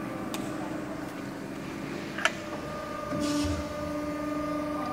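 Hydraulic guillotine shear running, its internal gear pump giving a steady hum. A sharp click comes a little over two seconds in, then the hum changes and grows louder, with a new steady note and a low rumble.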